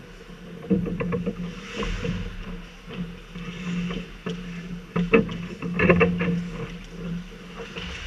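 Ice hockey play: skate blades scraping and carving the ice, with clusters of sharp clacks of sticks and puck about a second in and again around five to six seconds in, over a steady low hum.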